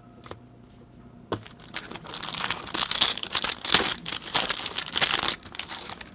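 Foil trading-card pack wrapper crinkling in the hands as it is torn open and the cards are pulled out. It is a dense, loud crackle that starts about a second in and stops sharply near the end.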